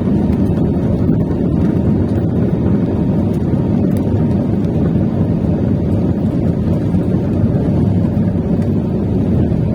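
Airliner taking off: a loud, steady low rumble of engine and air noise.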